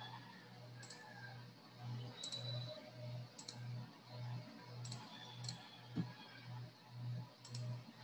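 Faint computer mouse clicks, about six short double clicks spaced a second or so apart, with a single dull knock about six seconds in, over a low hum that swells and fades rhythmically.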